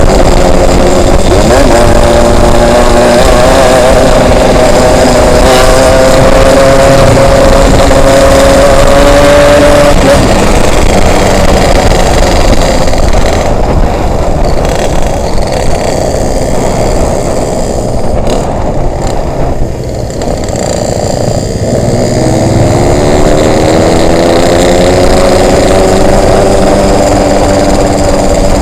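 Yamaha RX-King's 135 cc single-cylinder two-stroke engine on the move, held at steady revs that creep up, then backing off about ten seconds in and coasting with wind rushing over the microphone. About twenty-two seconds in it opens up again with rising revs.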